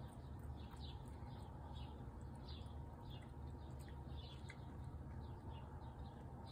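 Faint bird chirping: short, high, falling notes repeated about twice a second, over a steady low background hum.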